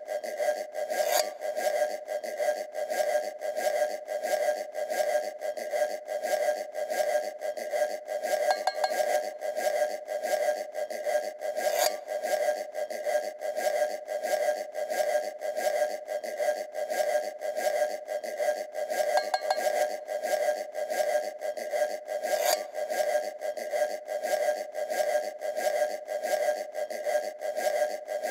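Tin can guiro: a ribbed metal food can scraped along its ridges in steady, repeated rasping strokes, with a ringing metallic tone.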